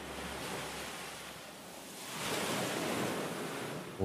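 Sea surf breaking and washing over shoreline rocks, a steady rush of surf that swells louder about two seconds in.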